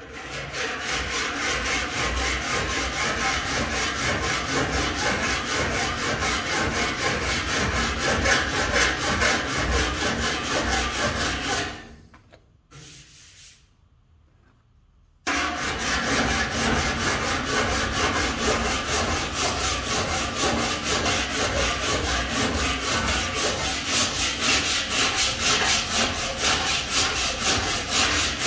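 A body file in an adjustable holder rasping across the bare steel of a 1936 Chevy truck fender in repeated push strokes, filing the panel level after low spots were bumped up. The scraping stops for about three seconds partway through, then starts again.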